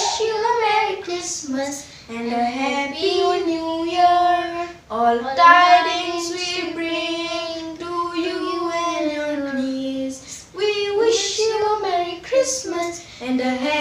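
Two young girls singing a song together, unaccompanied, in phrases with long held notes and short breaths between them.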